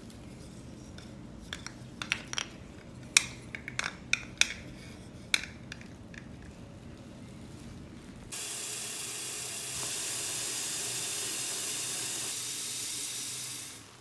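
Light wooden clacks and knocks, about a dozen in a few seconds, as wooden heart ornaments and a towel are handled on a wooden peg rack. About eight seconds in, tap water begins running steadily into a bucket of foaming floor cleaner, then stops shortly before the end.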